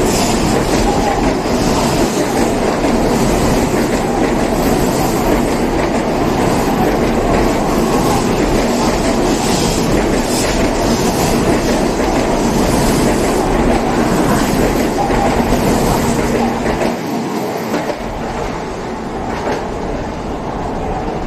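N700A-series Shinkansen train pulling out of the station, its running noise loud and steady. It eases off somewhat near the end.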